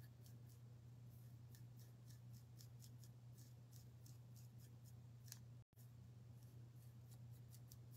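Near silence: a steady low hum under faint, quick scratchy strokes of a paintbrush working paint onto a wooden cutout, a few strokes a second at an uneven pace.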